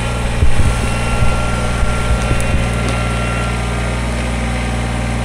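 Kubota BX20 compact tractor's small three-cylinder diesel engine running steadily under load, with several heavy thumps and cracks in the first couple of seconds as the pulled tree comes down.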